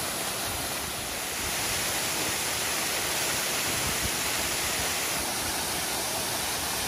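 Waterfall pouring into a rock plunge pool: a steady rush of falling water that grows slightly fuller about a second and a half in.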